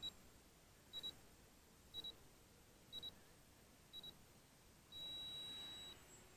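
Electronic countdown beeps: five short double beeps about a second apart, then one long beep of about a second at the same high pitch.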